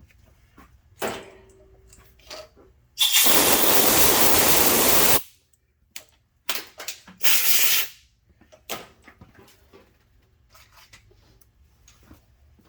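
Two hissing blasts of pressurized spray clearing the freshly tapped stud hole: one lasting about two seconds, then a shorter one a couple of seconds later. Light clicks and knocks of tools being handled come before and after.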